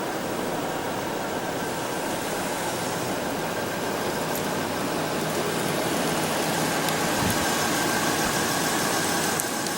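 Truck engine idling, heard from inside the cab, under a steady rushing noise that grows a little louder about halfway through.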